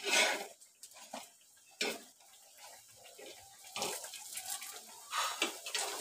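Puas deep-frying in hot oil, the oil sizzling and bubbling, with four louder surges of sizzle and scraping as a steel slotted spoon moves the fritters in the pan.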